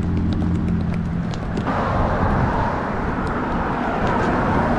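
Road traffic on a busy street: a steady engine hum, then the tyre rush of passing cars that starts about a second and a half in and swells and fades.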